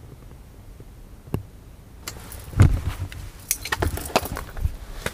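Handling noises on a tent floor: a single sharp click, then from about two seconds in a run of knocks, rustles and short clicks as gear and the camera are moved. The loudest knock comes about two and a half seconds in.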